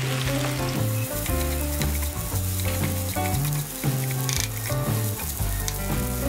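Macaroni with scrambled egg sizzling as it fries in a pan while a spatula stirs it, over background music with slowly changing low notes.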